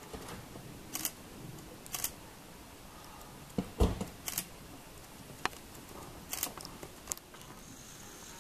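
A few sharp, irregular clicks, about six, scattered over faint steady hiss, with one dull thump near the middle.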